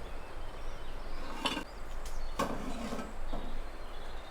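Sharp knocks from masonry work, a hard tool striking brick or stone, three times about a second apart, the last one fainter.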